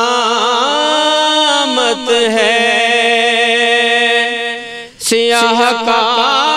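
A man singing a naat solo, holding long, ornamented notes that waver in pitch, with a short break for breath about five seconds in.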